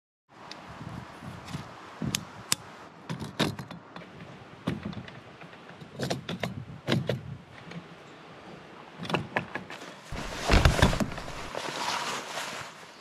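A series of sharp knocks and clicks, like gear being handled, with a loud low rumble lasting about a second and a half about ten seconds in.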